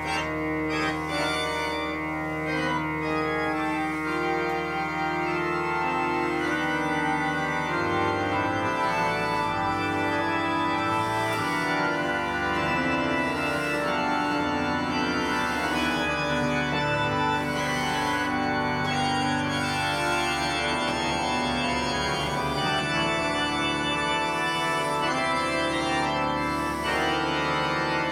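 Three-manual digital organ played in a peaceful improvisation: sustained chords over long-held bass notes, the harmony shifting every second or two at an even volume.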